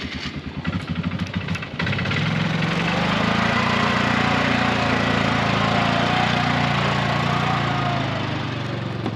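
Polaris six-wheel ATV engine putting along, then opening up at about two seconds as the machine pulls away and running steadily as it drives off.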